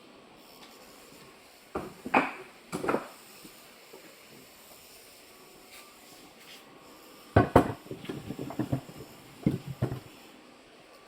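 Irregular hollow wooden knocks and clatter, pieces of wood being handled and set down: a few single knocks early, then a quick run of clattering knocks in the latter half.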